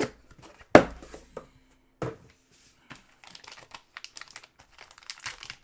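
Trading card packaging and cards being handled: crinkling and rustling with a few sharp snaps, the loudest about three-quarters of a second in.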